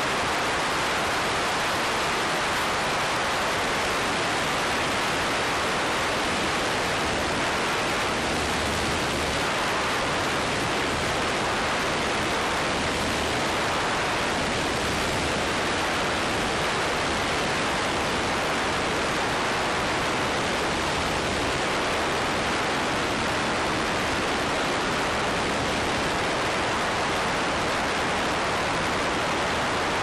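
Steady rush of airflow over an externally mounted GoPro on a Diamond DA20 light aircraft in cruise flight, at an even level, with a faint low drone underneath.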